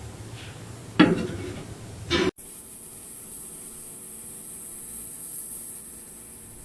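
A low mechanical rumble broken by two sharp clanks, then after a short cut a steady high hiss like a spray.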